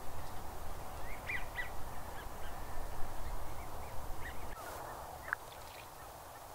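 Scattered short calls of distant waterfowl and other wetland birds, brief chirps and honk-like notes, over a low rumble that drops away about four and a half seconds in.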